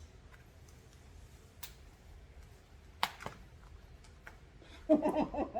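A couple of sharp clicks, then a short burst of laughter near the end.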